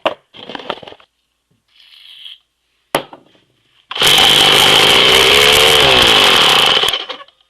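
Ohlsson & Rice Tiny Tiger generator's two-stroke model-airplane engine buzzing loudly for about three seconds in an attempt to start it, cutting in and out abruptly, its pitch rising and falling in the middle. Light handling clicks come before it.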